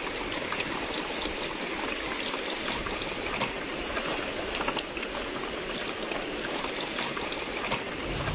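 Heavy rain falling steadily, with many small, sharp drop impacts through it.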